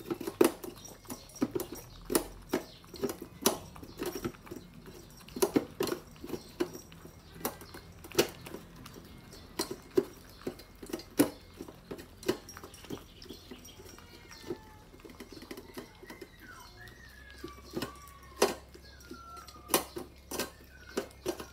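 Two puppies eating from stainless steel bowls set in a wooden stand: irregular clinks and knocks of their muzzles against the metal bowls, with chewing.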